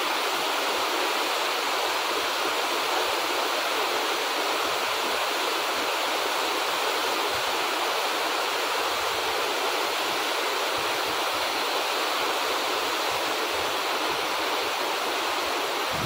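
Manthoka Waterfall's water falling, a steady rush of noise.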